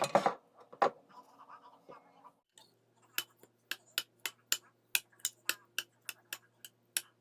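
A loud knock at the start, then from about three seconds in a steady run of sharp ticks or taps, about three to four a second.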